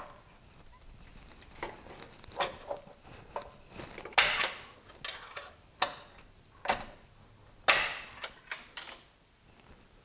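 Irregular sharp clicks and knocks as a rubber coolant hose with a loosened hose clamp is worked and pulled off the thermostat of a BMW E90 engine, about eight in all, unevenly spaced.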